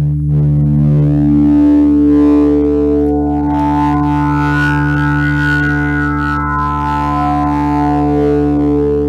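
Live electronic ambient music from a laptop and controller: a steady low drone with held higher tones that slowly swell and fade above it.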